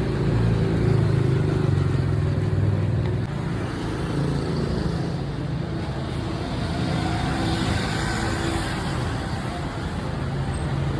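Street noise with a motor vehicle engine running close by, its low hum loudest in the first few seconds and then easing off.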